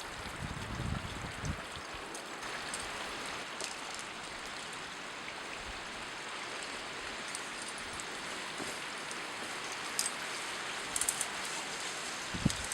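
Steady hiss of water, even throughout, with a few faint ticks near the end.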